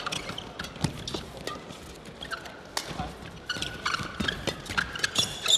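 Badminton rally: the shuttlecock is struck back and forth by rackets in sharp, irregular cracks, with short squeaks of court shoes on the floor between the hits.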